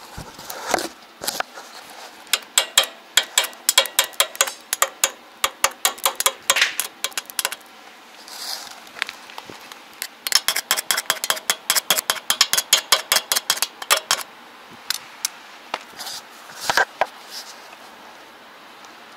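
Rapid tapping of a hammer on a steel bracket, about five ringing strikes a second, in two runs of several seconds with a few single taps around them.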